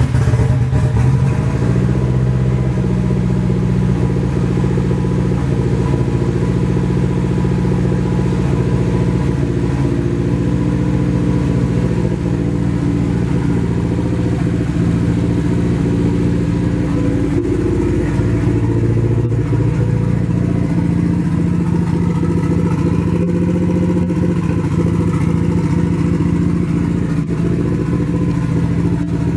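Nissan SR20DET turbo four-cylinder running steadily at idle, settling a second or two in just after being started. The owners say it sounds like it misfires and suspect old, stale fuel.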